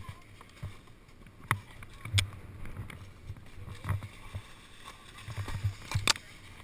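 Irregular knocks and scuffs from a snowboard and boots shifting on packed snow, picked up right against a body-mounted action camera, over a low rumble.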